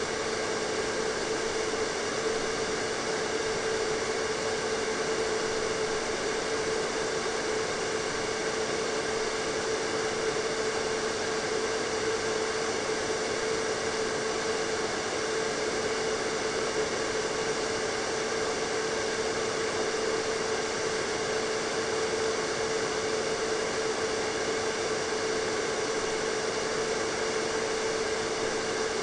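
Hair dryer running steadily, a constant rush of air with a steady motor hum.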